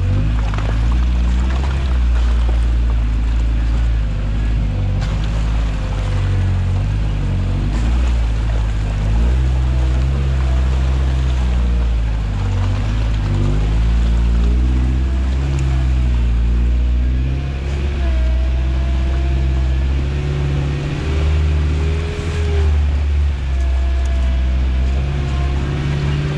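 Toyota truck's engine running while crawling on a trail, its pitch rising and falling with the throttle, with a wavering whine over it.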